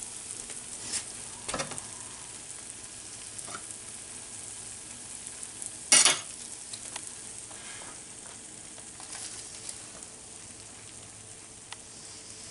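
A hot frying pan sizzling steadily, with a few light clinks of cutlery and one sharp clatter about six seconds in.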